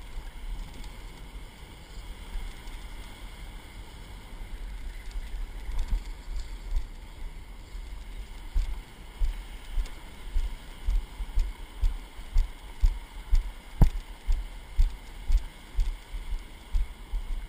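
Footsteps thudding through a body-worn camera as the wearer walks along the wet sand. The steps become steady and loud about halfway through, at about two a second, over a faint wash of breaking surf.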